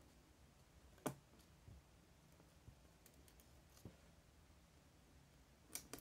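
Near silence broken by a few faint clicks of a small plastic cassette tape hub being handled in the fingers, the clearest about a second in.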